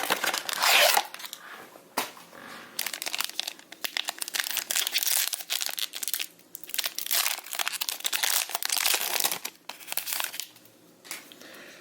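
Plastic packaging crinkling and rustling in irregular bouts as a box of trading cards is opened and the cards are unwrapped. The handling tails off near the end.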